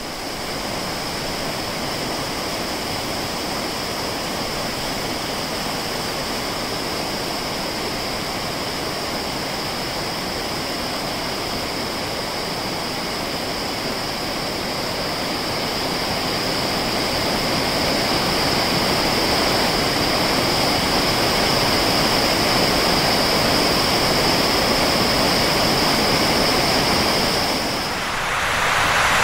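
River water rushing over a stone weir and rocks, steady and loud and growing somewhat louder about halfway through. A steady high-pitched hum sits on top of it and stops near the end.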